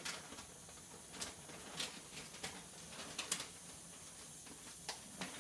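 Faint rinsing at a kitchen sink: tap water running softly over a plastic sheet of x-ray film, with a few light clicks and taps as the sheet is handled against the sink.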